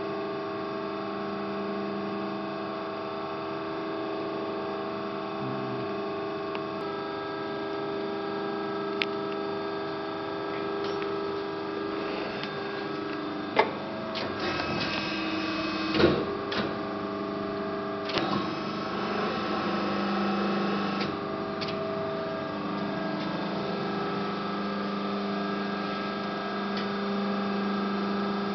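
Amada Promecam HFBO 220-ton hydraulic press brake running, a steady hum made of several tones. A sharp click about halfway in and a louder knock a couple of seconds later.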